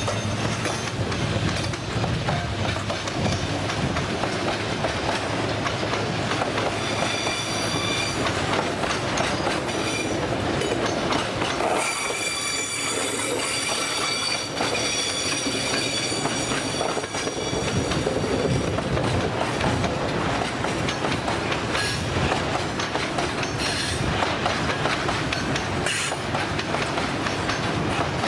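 Freight train wagons rolling past, with steady rolling noise and clacking of wheels on the rails. High-pitched wheel squeal comes in about seven seconds in, and again more strongly from about twelve to seventeen seconds.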